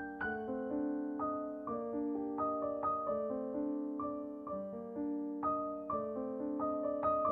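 Background piano music: a melody of single struck notes, a few a second, over held lower notes.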